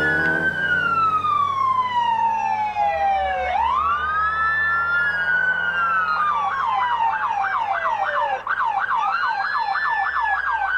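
Several police sirens wailing over one another in long rising and falling sweeps; about six seconds in, a fast yelp joins, warbling about three times a second.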